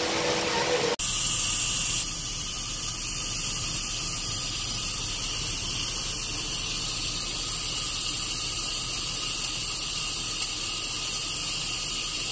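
Automatic coffee machine running as it dispenses into a cup: a steady hiss with a high squeal. It starts suddenly about a second in and is loudest for the first second.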